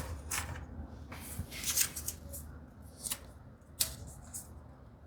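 A few brief scrapes and rustles of hands working small wooden parts at the bench. The sharpest comes about four seconds in, over a faint low hum.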